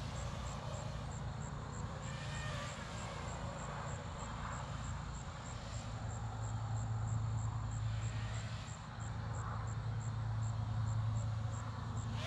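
FPV quadcopter with 2306 2500kV brushless motors flying, its motors heard at a distance as a hum with a whine that rises and falls with the throttle. A high, regular pulsing about three times a second runs underneath.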